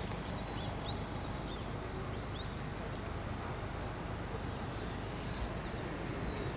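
Outdoor ambience: a steady low rumble of background noise, with a few short high bird chirps in the first two and a half seconds and again about five seconds in.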